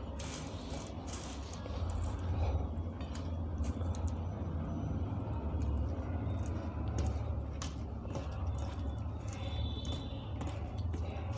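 Close-up eating sounds: irregular wet clicks, smacks and crackles of chewing and of rice and curry being handled, over a steady low hum.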